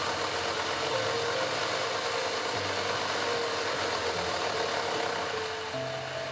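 Electric motor and gearbox of a model RC car chassis running steadily and spinning the wheels, its pitch shifting as the speed-controller signal is lowered and the wheels slow.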